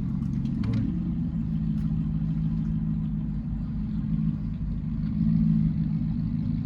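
Car engine idling, a steady low hum, with a few faint clicks within the first second.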